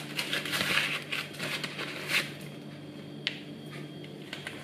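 A small paper spice sachet rustling and crinkling as granulated garlic is shaken out of it into a plastic blender beaker; the rustling dies away about two seconds in, and there is one light click about a second later.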